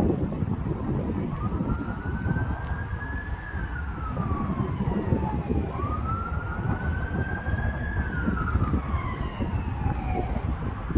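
Emergency vehicle siren in a slow wail, rising and then falling in pitch twice, over wind rumble on the microphone.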